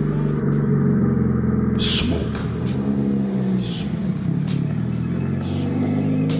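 Turbocharged Mitsubishi Evo VIII engine running at low speed as the car rolls slowly, its pitch rising briefly near the middle. Several short, sharp cracks are scattered through it.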